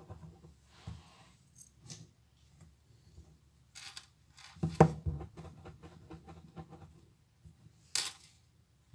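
Hands rolling and pinching play dough against a desktop: soft rubbing and scattered light taps, with a sharper knock about five seconds in and a brief scratchy swish near the end.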